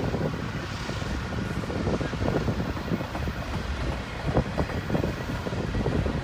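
Freight cars of a long mixed manifest train rolling past: steel wheels rumbling on the rails, with irregular clacks and knocks from the wheels and cars.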